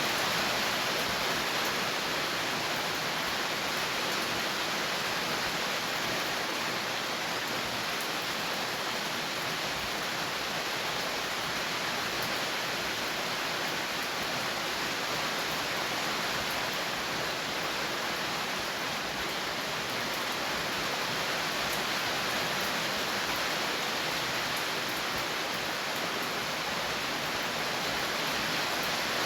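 Steady rain falling, an even hiss without pauses or changes.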